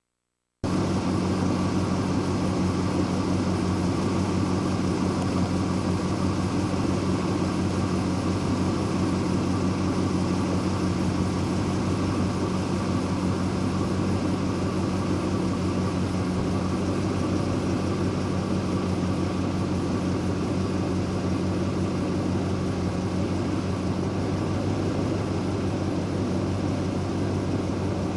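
Steady vehicle engine drone with a low, even hum and a wide noise wash, cutting in abruptly about half a second in.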